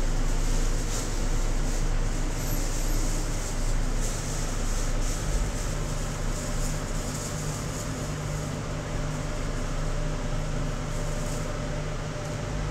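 Steady machine hum with a low drone, like a fan or motor running, with water and a plate being rinsed in a steel sink.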